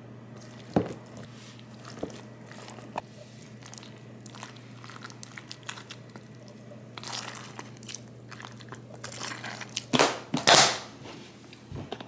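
Seasoned napa cabbage kimchi being dropped and pressed by hand into a plastic container: wet squishing and rustling with a few sharp taps, over a steady low hum. A louder clatter of handling comes about ten seconds in.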